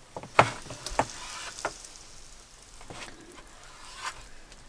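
Chef's knife cutting through bread dough and knocking on a plastic cutting board about five times, over a light hiss.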